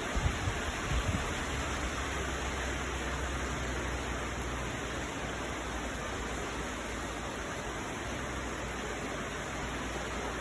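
Heavy rain falling steadily, an even hiss, with a few low thumps in the first second or so.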